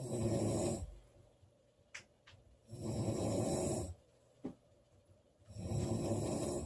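A woman snoring loudly in sleep: three rasping snore breaths, each about a second long and about three seconds apart. A few short faint clicks fall in the pauses between them.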